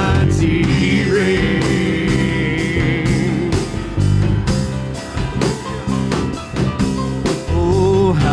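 Live praise-and-worship band music between sung lines: a steady beat under sustained bass notes, with a held, wavering high melody line about a second in.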